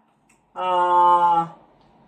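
A woman's voice holding one steady vowel for about a second, a drawn-out "ahh" between spoken words.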